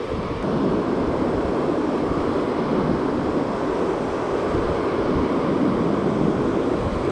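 Steady rush of surf breaking and washing up the beach, mixed with wind buffeting the microphone.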